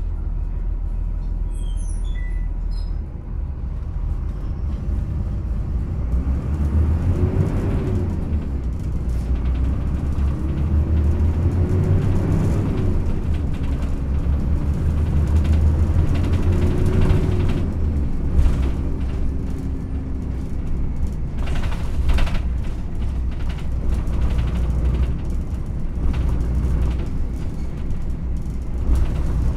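Yutong ZK6128HG low-floor city bus heard from inside, pulling away: its diesel engine note climbs and drops back three times as the ZF automated manual gearbox works up through the gears, then settles to a steady cruise over a constant low rumble. A few knocks come near the end, in keeping with the body rattling on uneven road.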